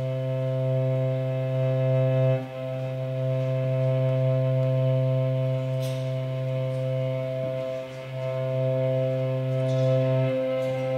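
Amplified homemade violin built from found metal parts, bowed slowly in long held low notes. The note changes about two and a half seconds in, again near eight seconds, and once more near the end.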